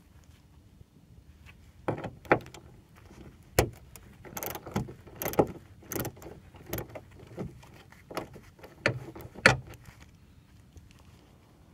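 Socket ratchet wrench clicking in short, irregular strokes as it loosens the 10 mm nuts on a hood strut bracket, with sharp metallic clicks and knocks starting about two seconds in and stopping shortly before the end.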